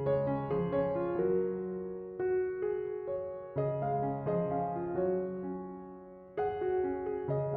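Background piano music: a slow, gentle melody of single notes over low chords, each note struck and left to ring and fade.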